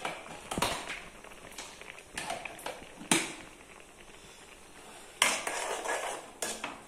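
Steel spoon clinking and scraping against a metal cooking pan: a few sharp knocks in the first three seconds, then a second or so of stirring and scraping about five seconds in, ending with another knock.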